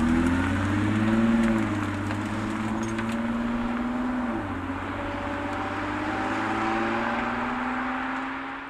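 Nissan Fairlady Z (Z34) with an HKS LEGAMAX Premium muffler, its 3.7-litre V6 exhaust note pulling away under acceleration. The engine pitch climbs, drops at a gear change a little after four seconds in, then climbs again. The sound grows fainter as the car recedes and fades out near the end.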